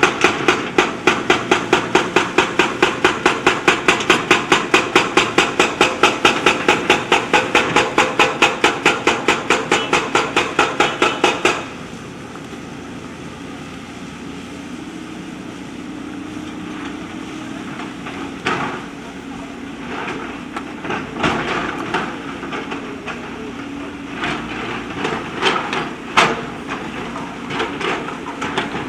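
JCB backhoe loader working on river stones: a rapid, even hammering of about four blows a second that stops suddenly after some eleven seconds, then the machine running with scattered clanks and knocks of stone and steel.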